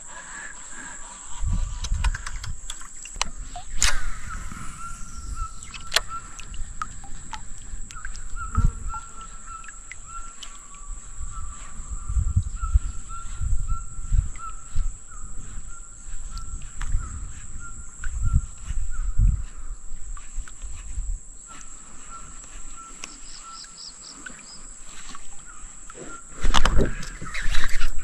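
Rainforest ambience: a steady high-pitched insect buzz, with a rapid pulsing trill and bird calls through most of it. Irregular low rumbles and bumps run underneath.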